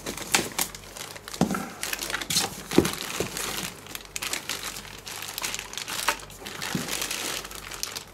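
Plastic bags crinkling and packing peanuts rustling as bagged parts are lifted out of a cardboard box: irregular crackles, the sharpest a little under three seconds in.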